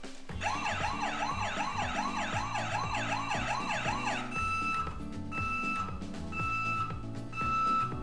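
Cartoon emergency-vehicle siren sound effects over background music. First a fast wailing siren sweeps up and down about three times a second; then, about four seconds in, it changes to a high tone sounding on and off about once a second.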